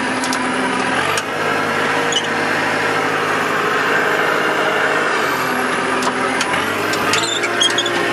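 Engine of a John Deere loader, heard from inside its cab, running steadily. Its speed shifts a few times, about a second in, around the middle and near the end.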